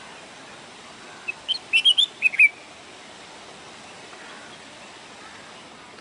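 Red-whiskered bulbul singing one short, quick phrase of clear chirping notes about a second in, over a steady background hiss.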